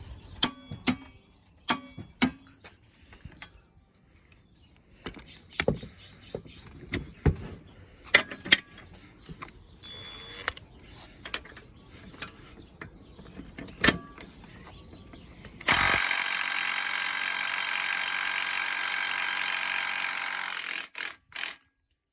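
Scattered metallic clicks and knocks from handling tools and a socket, then, about 16 seconds in, an impact wrench hammers steadily for about five seconds, breaking loose a nut torqued to 175 foot-pounds, and stops abruptly.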